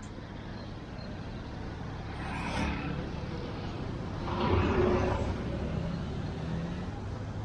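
Street traffic: two motor vehicles pass, one about two and a half seconds in and a louder one about four and a half seconds in, each swelling up and dying away over a steady low hum.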